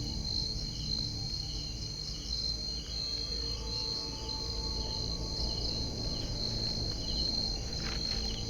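Night insects, crickets or similar, calling: a steady high-pitched trill runs throughout, with short chirps repeating about once a second, over a low rumble.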